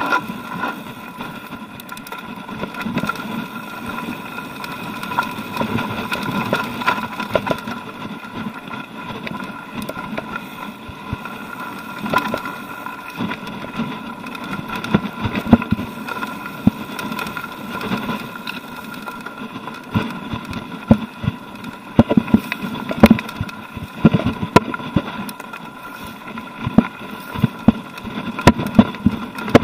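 Mountain bike rolling over a rough, stony dirt singletrack: tyres crunching on loose rock, with frequent sharp knocks and rattles from the bike that come thicker and louder in the second half.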